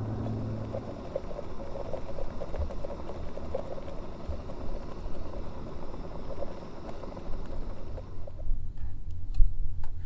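Gas canister stove burning under a pot of water heating on the flame, with a steady hiss and fine bubbling crackle. It stops suddenly about eight seconds in, leaving a few light clicks.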